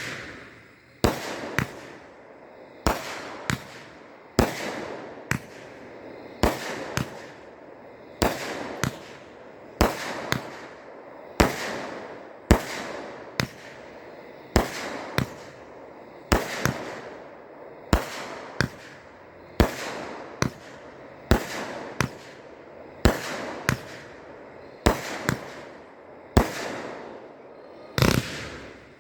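66-shot consumer firework cake firing shot after shot, sharp bangs about one to two a second, each trailing off before the next.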